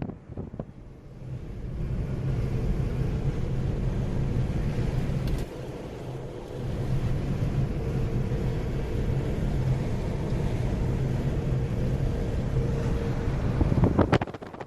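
Steady low mechanical hum, like a motor running, with wind noise on the microphone; it drops away about five and a half seconds in and comes back a second later.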